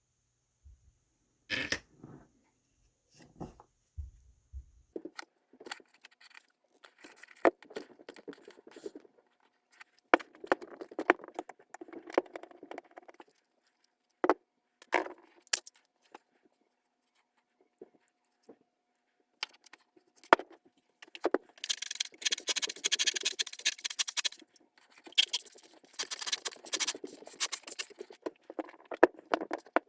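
Parts of a JobMate 4.5-inch angle grinder being handled and taken apart: scattered clicks and knocks of small metal and plastic pieces with scraping in between, and two longer stretches of scraping and rattling in the last third.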